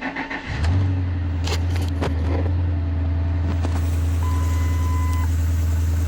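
2008 Ford F-250's 5.4-litre V8 starting right up: it catches about half a second in and settles into a steady idle. A warning chime sounds twice in the second half, about a second each time, over a few clicks.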